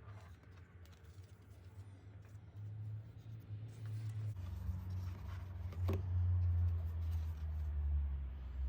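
Handling of a K-pop album's packaging during unboxing: faint rustling of paper and card over a low rumble that grows louder about halfway through, with one sharp click near the end.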